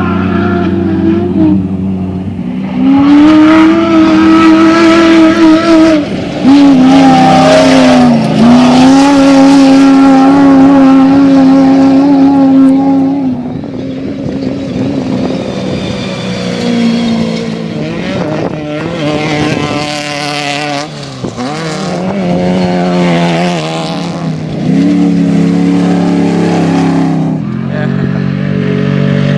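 Race car engines running hard, their pitch rising and falling as the cars accelerate, lift and pass, with more than one engine heard at once. The engines are loudest for the first half and somewhat quieter after.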